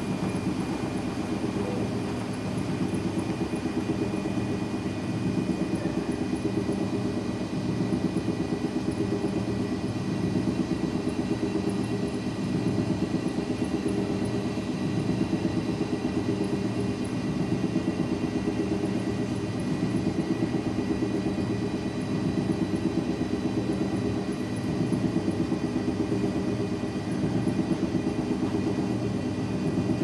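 Two coin-operated launderette front-loading washing machines in their spin cycle together: a steady low drum hum with a fast rotating rhythm and a faint high whine. The level swells and eases every few seconds.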